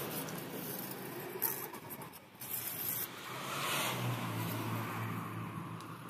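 Building-site noise: scraping and hiss, then a steady low motor hum that sets in about halfway through.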